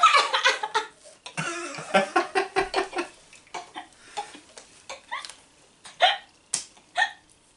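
Several people laughing hard together in quick rhythmic bursts, dying down to a few short breathy gasps and giggles in the second half.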